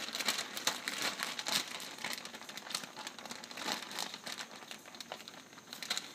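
Plastic bag of shredded mozzarella cheese crinkling as it is handled and tipped, with many irregular sharp crackles.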